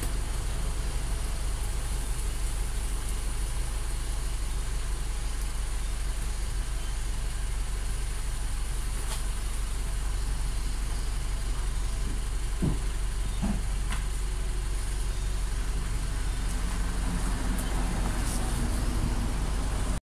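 Honda Stream RN6's four-cylinder engine idling through a Mugen S Flow muffler: a steady, low exhaust rumble at constant pitch.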